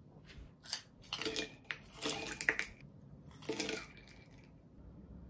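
Ice cubes tipped from a glass container into a ceramic mug of hot drip coffee, clinking against the mug and splashing into the coffee in about four bursts, the loudest around the middle.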